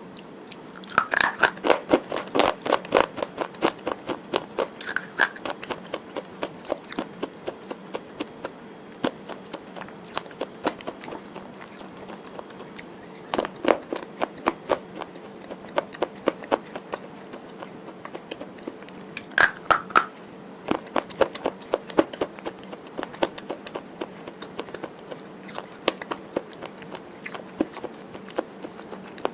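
Close-up eating sounds: a person biting into and chewing a snack bar, with sharp crackly clicks. Louder clusters of bites come about a second in, about halfway through and again a little later, with lighter chewing clicks between.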